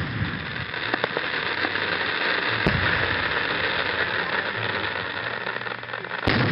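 Aerial firework shells: the boom of one burst dies away at the start over a steady hiss, with a couple of faint pops. Another shell bursts with a loud boom near the end.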